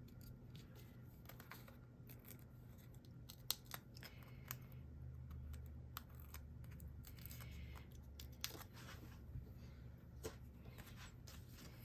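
Faint scattered small clicks and short papery rustles: backing being peeled off foam adhesive dimensionals and the pieces handled, over a low steady hum.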